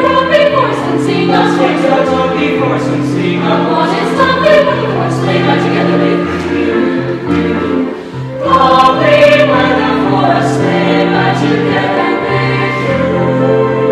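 Mixed high school choir of male and female voices singing a Christmas carol in held, shifting chords. There is a short breath between phrases about eight seconds in.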